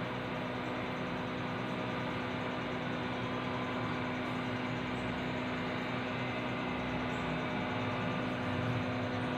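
Steady mechanical hum with a constant low tone over a light hiss.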